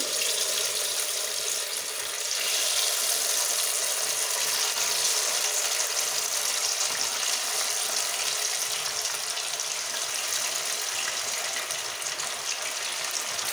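Marinated chicken pieces sizzling and bubbling as they deep-fry in hot oil in a kadhai, with more pieces going in one by one. The frying hiss grows louder about two seconds in and then holds steady.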